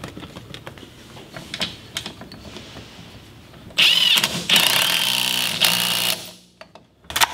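Light clicks of plastic trim being handled, then a 20V cordless drill/driver whirring with a high whine as it drives screws into the steering column hub, in two runs lasting about two seconds in all, starting about halfway through.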